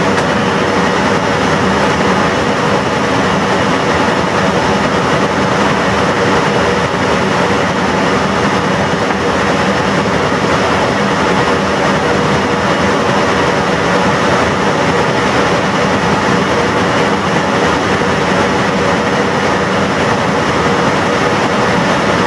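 Steady flight-deck noise of an airliner on an ILS approach: an even rush of airflow over the cockpit with the hum of the engines, unchanging in level throughout.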